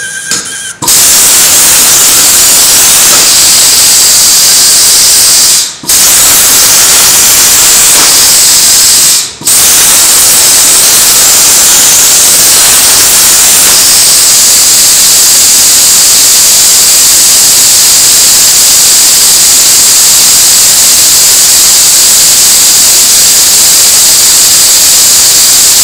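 CNC plasma cutter torch cutting: a loud, steady hiss of the arc and compressed air that starts about a second in, drops out briefly twice in the first ten seconds, then runs on unbroken.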